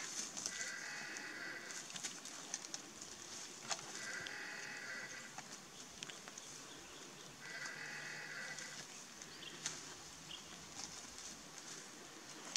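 Three drawn-out animal calls, each about a second long and spaced evenly a few seconds apart, over a steady high-pitched hiss.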